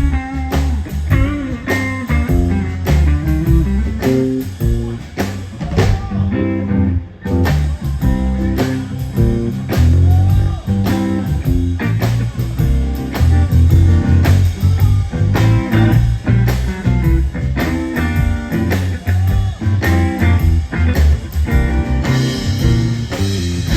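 Live blues-rock band playing, with guitar to the fore over a steady beat; the high end drops out briefly about seven seconds in.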